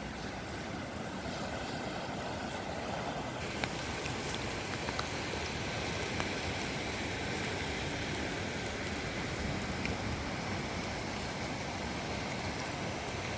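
Steady rush of a swollen, fast-flowing river in flood, with a few faint clicks.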